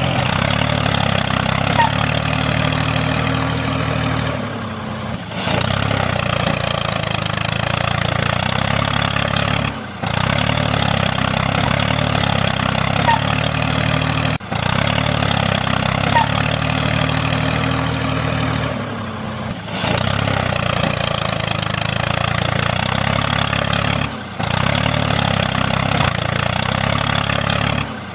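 Tractor engine running steadily. The same few-second stretch repeats over and over, with a short dip in level about every four to five seconds.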